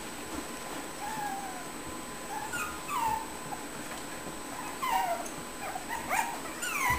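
Puppies whimpering and yipping at play: short, high-pitched cries that fall in pitch, coming every second or two and loudest near the end.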